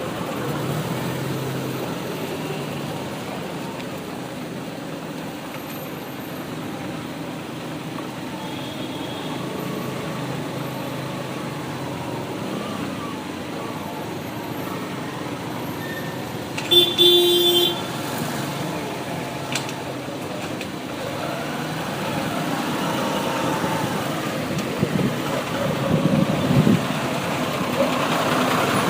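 Steady road traffic noise heard while riding a bike, with vehicles passing. A vehicle horn honks once for about a second, a little past halfway through, the loudest sound in the stretch, and the traffic swells again toward the end.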